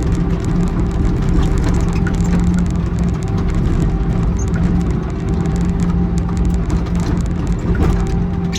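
Excavator's diesel engine running steadily under load, with scattered light ticks and rattles over the steady hum.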